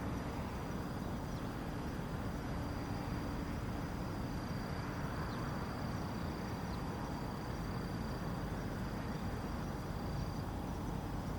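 Steady low outdoor rumble and hiss, with a thin steady high-pitched tone that stops near the end.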